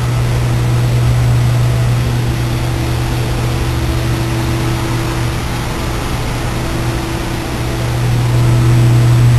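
Steady low hum of running industrial machinery, with a constant drone and a fainter higher tone above it, growing a little louder near the end.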